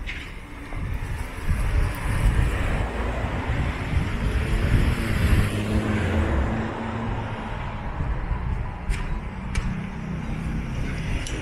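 A car passing close by on a narrow street: engine and tyre noise swell to a peak around the middle and then ease off. A couple of short clicks come later on.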